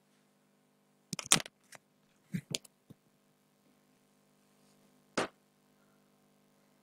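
A handful of sharp clicks and knocks: a quick cluster about a second in, a few smaller ones just after, and one more single click near five seconds, over a faint steady electrical hum.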